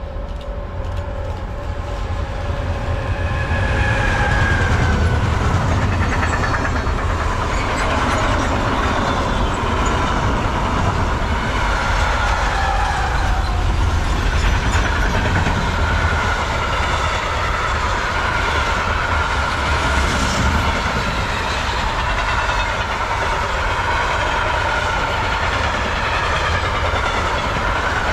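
A train passing close by: a steady rumble of wheels on the rails that builds over the first few seconds and then holds for over twenty seconds, with a high wavering whine over it.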